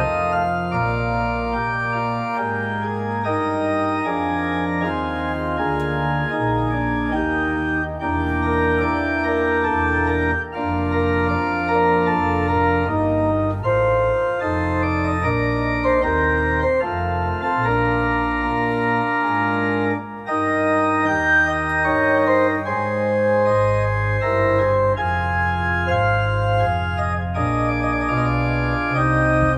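Pipe organ playing slow, sustained chords over a moving bass line, with two brief breaks between phrases.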